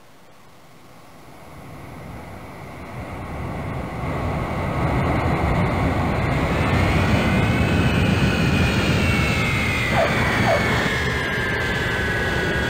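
Jet aircraft approaching and passing low overhead. A rumble builds over the first few seconds, then a high engine whine falls steadily in pitch as the aircraft goes by.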